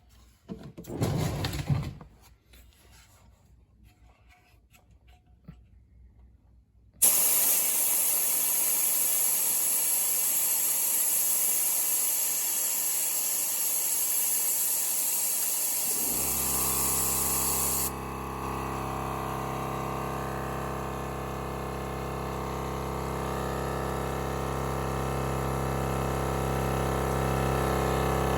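A brief rustle, then a loud steady hiss of air starts suddenly about seven seconds in. From about sixteen seconds a Milwaukee cordless air compressor's motor and pump run steadily, and the hiss fades soon after.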